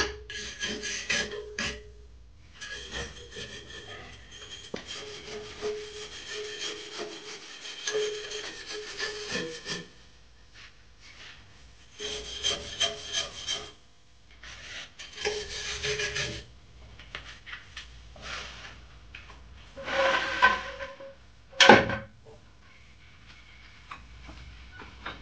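A sander scrubbing rust off a truck's steel step rail in stop-start passes of scratchy abrasion, one long pass and several shorter ones, with a short, loud scrape near the end.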